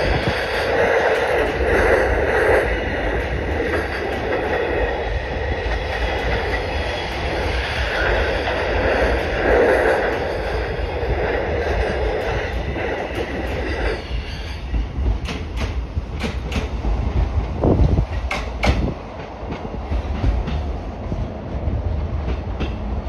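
JR East E233-5000 series electric train rolling past close by as it pulls out, a loud steady running rumble of wheels and motors. About 14 seconds in it gives way to a series of sharp clacks of wheels over rail joints and points.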